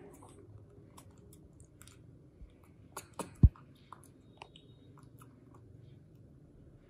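Small wet mouth clicks and sucking of a baby monkey drinking nut milk through a plastic straw from a glass, with scattered light clicks of the straws against the glass. One dull knock about three and a half seconds in.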